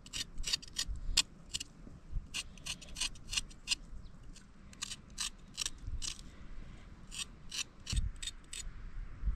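Runs of quick, crisp snipping clicks, about five a second, broken by short pauses, with a few soft low thumps in between; typical of vegetables being cut by hand.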